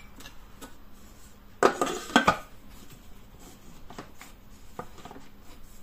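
Plastic lid being set onto a Thermomix TM6 mixing bowl: a short cluster of clattering knocks about two seconds in, then a few light clicks as it is seated.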